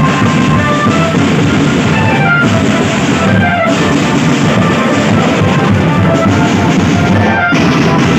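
Rock music with a drum kit and guitar, playing steadily and cutting off abruptly at the very end.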